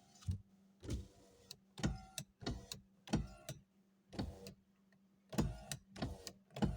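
Power window switch of a 2004 Toyota RAV4 being clicked again and again, with the window motor running in short bursts. It is the freshly repaired switch being tested, and it works.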